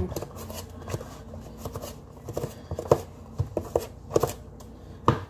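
Irregular light clicks and knocks of things being handled on a kitchen counter, a few a second, with a quicker run of clicks near the end.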